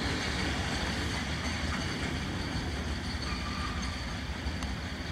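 Passenger train running along the track, a steady low rumble that eases off slightly.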